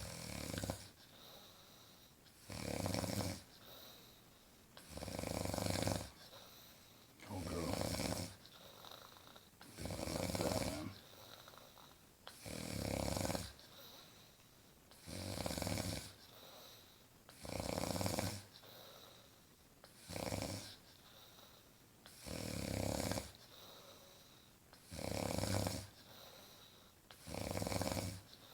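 Heavy snoring from a sleeper in deep sleep: a long snore on each in-breath, about every two and a half seconds, about a dozen times, with quieter breathing between.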